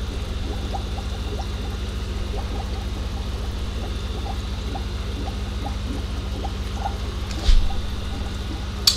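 Air-driven sponge filter bubbling in a small aquarium: a steady patter of small bubbles popping at the surface over a steady low hum, with two brief clicks near the end.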